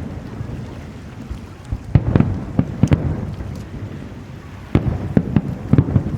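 Aerial fireworks bursting: a quick cluster of sharp bangs about two seconds in and another near the end, with a low rumbling echo between them.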